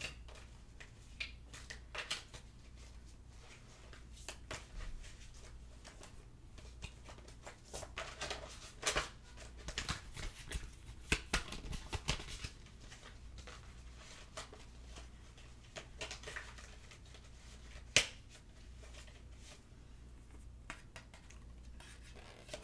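A tarot deck being shuffled by hand: soft irregular papery card rustles and taps, busiest in the middle, with one sharp tap about eighteen seconds in, over a faint steady low hum.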